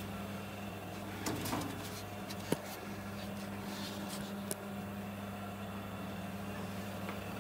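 A steady low hum, with a few light handling clicks and rustles. The sharpest click comes about two and a half seconds in.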